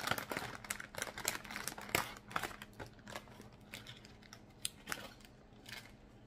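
Crinkling and rustling of a foil-lined instant pho noodle pouch and the plastic noodle tray as they are handled and opened, with many small sharp clicks and crackles. The sounds are busiest in the first half and thin out toward the end.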